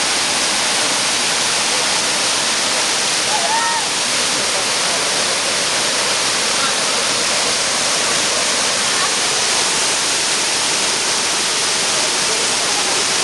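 Waterfall: falling water rushing as a steady, even hiss that never lets up.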